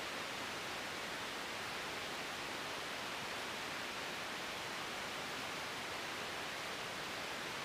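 Steady cockpit noise of a Tecnam P92 Eaglet light aircraft rolling out on the runway after landing, heard as an even hiss with no distinct engine note.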